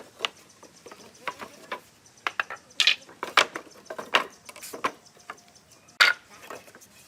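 A run of irregular sharp taps and knocks on wood, about two a second, with the loudest knock near the end.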